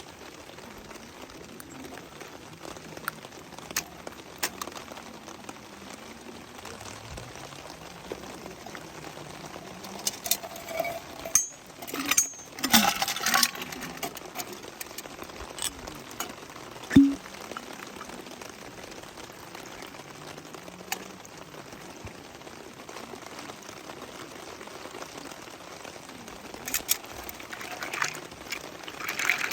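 Steady rain hiss with scattered clinks and knocks from glassware and gear being handled. A burst of louder clattering comes about ten to fourteen seconds in, and there is a single sharp knock a few seconds later.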